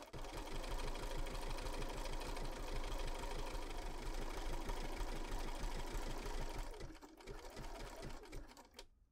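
BERNINA B475 sewing machine stitching a wide, dense zigzag at a steady, rapid rhythm. It slows and stops near the end.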